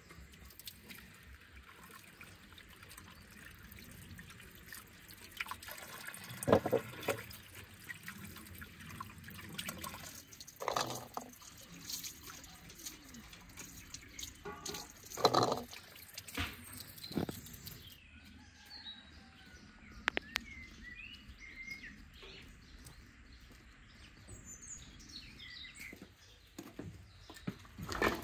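Scattered short knocks and clatters of vegetables and garlic cloves being dropped into a ceramic bowl, with birds chirping faintly in the background.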